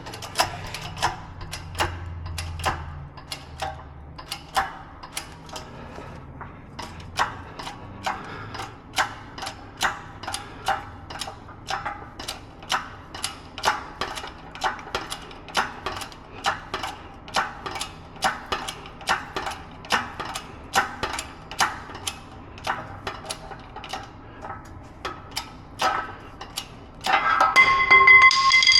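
Shop press being worked stroke by stroke to push a control arm bushing into its arm, a sharp metallic click with each stroke at about one and a half a second. Near the end comes a louder ringing metallic clank as the bushing gives under the load.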